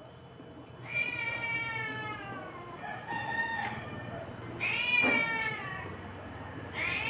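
A cat meowing four times, drawn-out meows that fall in pitch, about every one and a half to two seconds.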